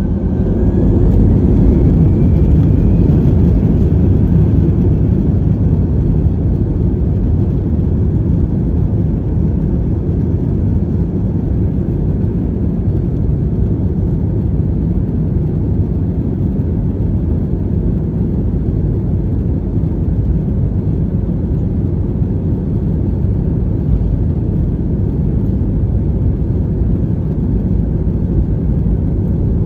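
Airbus A320 jet engines heard from inside the cabin, spooling up to takeoff thrust with a rising whine over the first few seconds, then a loud, steady rumbling roar as the airliner accelerates along the runway on its takeoff roll.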